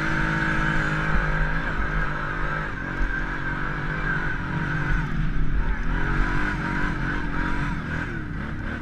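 Sport ATV engine pulling hard up a steep dirt hill climb, its pitch rising and falling with the throttle in the middle, then easing off near the end as the quad slows at the crest.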